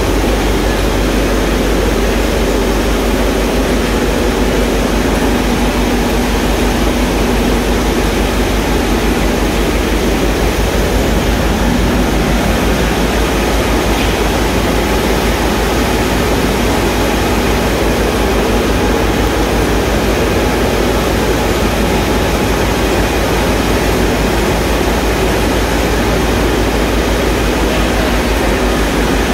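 Tea-processing machinery running in a factory hall: a steady, loud mechanical drone of electric motors and belt drives with a low hum.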